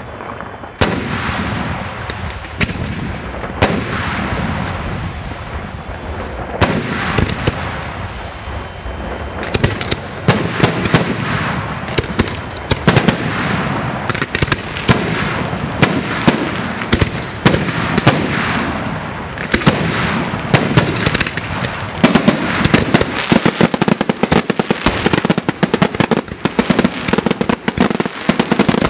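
Aerial firework shells bursting. A few separate bangs with a crackling hiss between them in the first ten seconds, then a dense, rapid string of bangs that gets faster toward the end.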